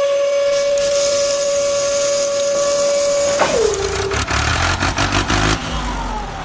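A long, steady horn-like blast that sags in pitch as it cuts off about three and a half seconds in, followed by a low engine-like rumble.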